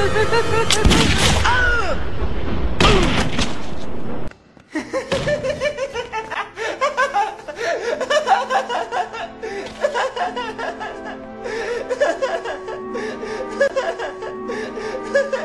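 Cartoon villain's manic laughter with two loud noisy bangs, about one and three seconds in. The sound cuts off abruptly just after four seconds, then dramatic orchestral score plays with intermittent laughter over it.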